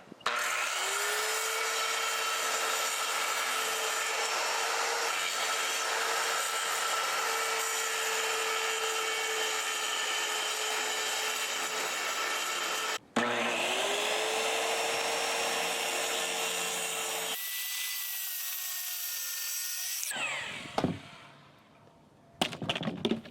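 Power saw with a masonry blade cutting Durock cement board. The motor spins up with a rising whine and runs steadily through a long cut, stops briefly about 13 seconds in, then spins up and cuts again. Near the end it winds down with a falling whine and fades out.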